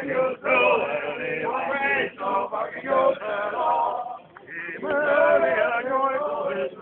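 Crowd singing together, mostly men's voices, in two phrases with a short break between them.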